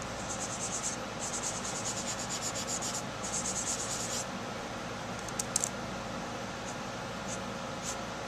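A cotton pad rubbed quickly back and forth over a photographic print, working photo oil paint into the paper: rapid, scratchy rubbing strokes in runs of a second or two with short pauses, then a few single strokes near the end.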